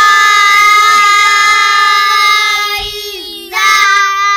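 Children singing loudly together, holding one long high note that slides down after about three seconds, then launching into a second held note.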